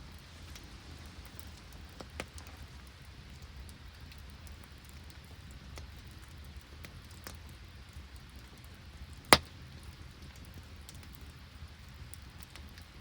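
Open wood campfire crackling with scattered small pops and one sharp, loud snap about nine seconds in, over a steady low rumble, with rain falling.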